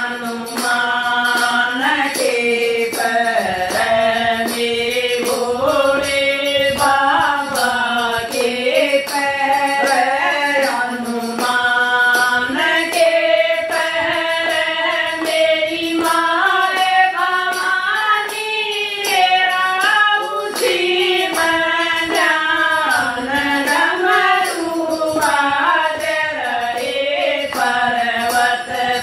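A group of women singing a Hindi devotional bhajan to Shiva in unison. Hand claps and a handheld clapper keep a steady beat.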